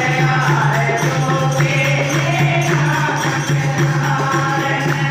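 A group of women singing a devotional song, one voice leading into a microphone, with a jingling, tambourine-like percussion accompaniment over a steady low hum.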